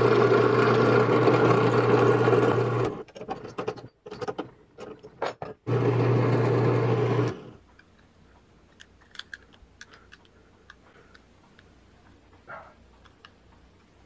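Bench drill press motor running while boring through a small wooden block, for about three seconds. Then a few knocks and rattles, and a second short run of the drill press about six seconds in. The rest is only faint small clicks of handling.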